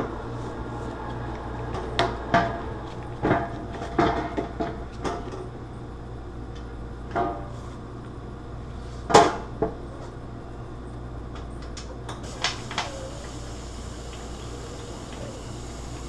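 Irregular metallic knocks and clatter as a GE dishwasher's lower front access panel is handled and fitted back into place, about a dozen knocks with the loudest around nine seconds in, over a steady low hum.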